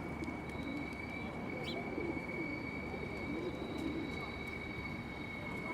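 Pigeons cooing: a series of low, soft, arching coos repeating about once a second, over a steady thin high-pitched tone. A small bird gives one short chirp about a second and a half in.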